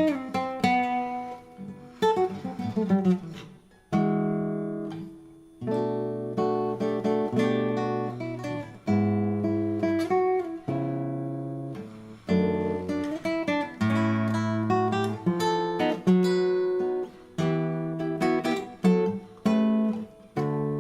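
Acoustic guitar playing a jazz manouche (gypsy jazz) piece. Quick runs of single notes in the first few seconds give way to chords struck one after another, each ringing out and fading before the next.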